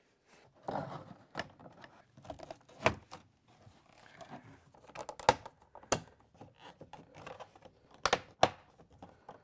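Irregular clicks and knocks with rustling in between, as of parts being handled and fitted by hand. The sharpest knocks come about three seconds in and twice near the end.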